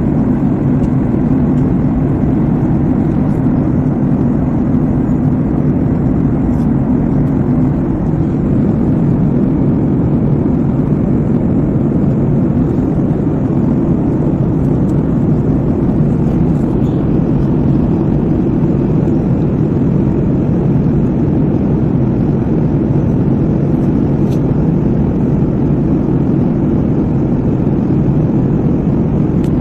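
Steady cabin noise of a jet airliner in cruise, heard inside the cabin: an unbroken low rumble of engines and rushing air.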